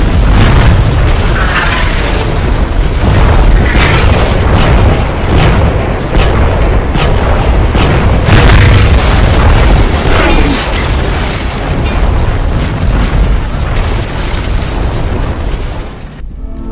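Battle sound effects: a dense run of booming explosions and cannon shots, one strike after another, with a few sweeping whistles among them, over music. The din drops away near the end.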